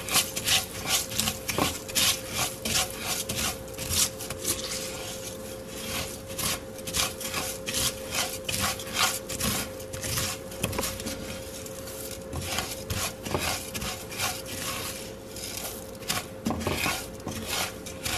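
A slotted spoon scraping and stirring dry rice grains in oil around an enamelled cast-iron pot, in repeated rasping strokes as the rice toasts. A faint steady hum runs underneath.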